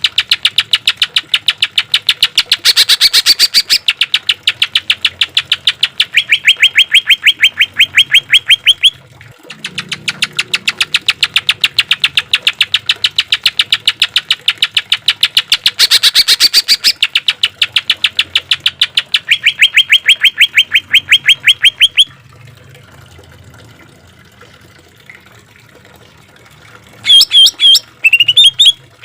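Green leafbird (cucak ijo) singing long runs of harsh, rapid-fire rattling notes, the 'tembakan' phrases prized by bird-keepers. There are two long bouts with a short break about nine seconds in, then a quieter stretch from about 22 seconds, and a few sharper chirps near the end.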